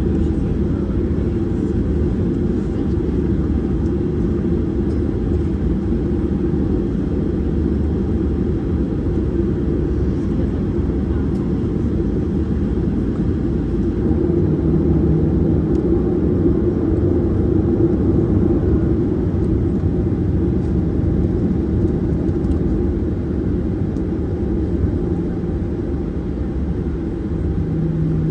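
Boeing 737-800 cabin noise: the steady low rush of the jet engines and airflow. It grows a little louder about halfway through, when a faint low hum comes in.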